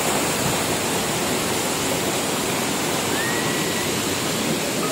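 Loud, steady rushing of fast-flowing mountain river water. A faint short whistle sounds a little after three seconds in.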